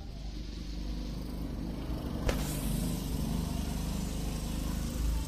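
A motor vehicle's engine running steadily, getting louder after about two seconds, with a single sharp click a little past two seconds.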